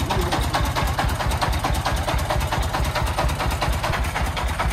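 Three-wheeled công nông dump truck's 40 hp diesel engine idling with a steady, rapid, even putter.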